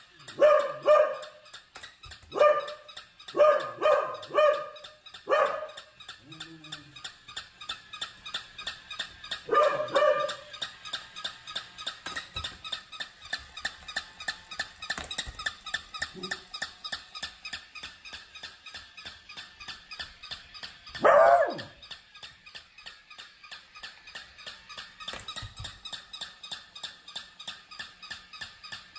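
Short dog barks in clusters of one to three, with a single louder bark about 21 seconds in, over a fast, even ticking rhythm that runs throughout.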